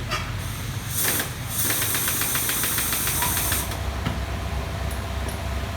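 A loud hiss with a fast, even ticking in it for about two seconds, then a small engine running steadily with a low hum.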